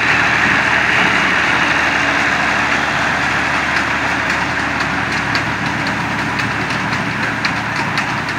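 Tractor engine running steadily under load while its rear-mounted BCS reaper cuts standing wheat. Light, rapid clicking comes in from about halfway through, and the sound eases slightly as the tractor pulls away.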